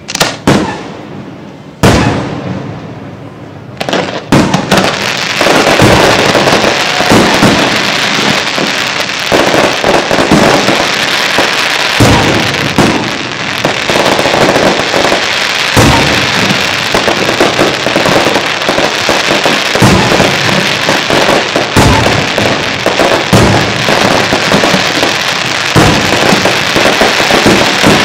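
Fireworks display: three separate bangs about a second and a half apart, then from about four seconds in a continuous barrage of booms and crackling.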